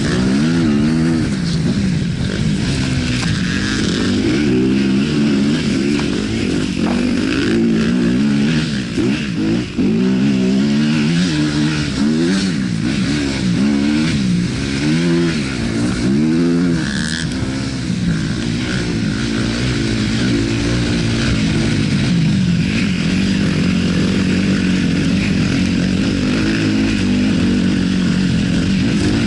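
2018 Yamaha WR250F's single-cylinder four-stroke engine with an Akrapovic exhaust, being ridden: the revs rise and fall over and over with the throttle through the first half, then run more steadily. A few short knocks sound in between.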